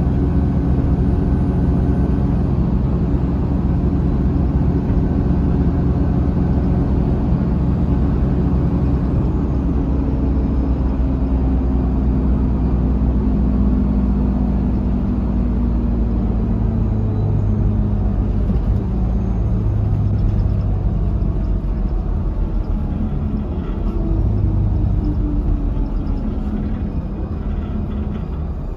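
Inside a 2005 Mercedes-Benz OH1728 coach on the move: its diesel engine and ZF automatic transmission drone steadily. Through the middle the pitch falls slowly over several seconds, and the sound eases a little near the end.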